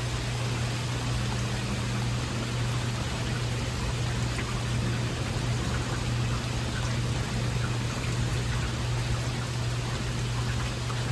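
Heavy rain falling steadily during a thunderstorm, an even hiss of downpour with no thunder, over a steady low hum.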